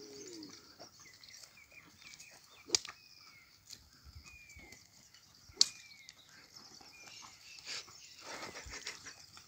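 Outdoor field sounds while oxen pull a wooden plough through loose soil. A steady high hiss runs throughout, with a few short falling chirps, two sharp clicks that stand out as the loudest sounds, and a scuffing rush of feet and plough in the soil near the end.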